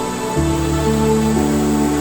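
Background music of slow, held chords; a new chord with a deeper bass note comes in about half a second in.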